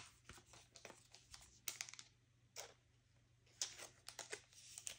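Faint, irregular small clicks and taps of trading cards being handled on a tabletop.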